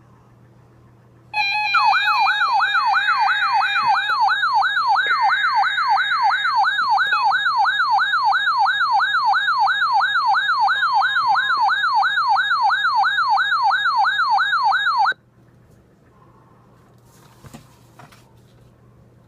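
Electronic emergency-alert siren tone: a loud wail sweeping up and down about three times a second, with higher tones layered over it. It starts about a second in with a brief burst of stepped tones, runs for about 14 seconds, then cuts off abruptly.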